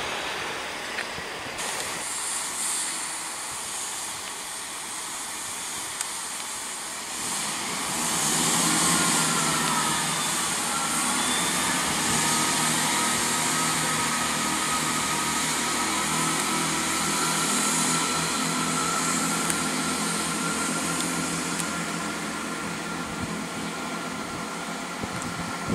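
Class 166 Turbo diesel multiple unit pulling out. After a few seconds of steady hiss, its diesel engines come in under power, with a high whine that dips in pitch and then holds steady.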